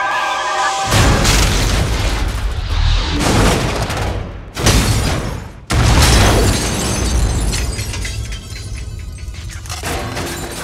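Explosion sound effects over film score music: a series of heavy booms with crashing debris in the first six seconds, then dying away.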